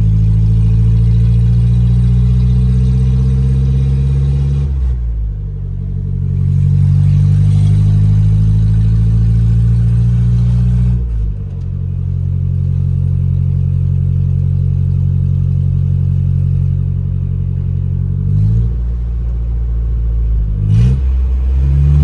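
Nissan 720 pickup's swapped-in Z24 four-cylinder engine, heard from inside the cab while driving. The engine note climbs steadily under acceleration and drops suddenly at each gear shift, about 5 and 11 seconds in. It then runs steady, with two more changes in pitch near the end.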